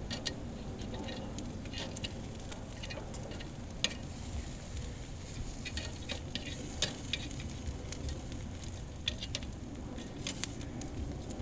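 Pre-baked pork spare ribs sizzling on a grill, the fat crackling with scattered sharp pops over a steady low background noise.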